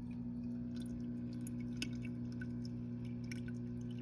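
Top Fin Indulge 3-gallon aquarium's filter pump humming steadily, with faint scattered drips and trickles of water.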